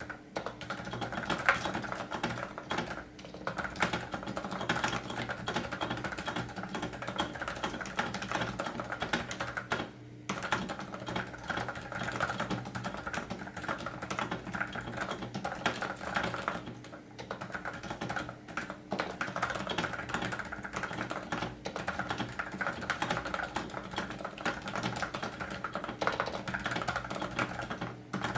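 Fast, continuous typing on a Topre electrostatic capacitive keyboard (Realforce RGB) with original ABS keycaps. Most keys are fitted with Silence-X dampening rings, which mute the usually harsh upstroke into a softer thock, while the rest of the keys stay stock. There are a couple of brief pauses in the typing.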